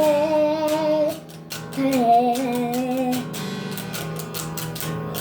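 Music: a high voice holds a long note, then sings a short phrase, over acoustic guitar. The singing stops about three seconds in, leaving steady strummed guitar.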